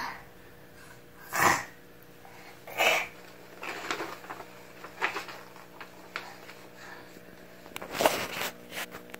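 A small child's two short breathy huffs, then crackling and rustling of printer paper as a taped-up photo is peeled back and pulled off the wall, with a longer rustle near the end.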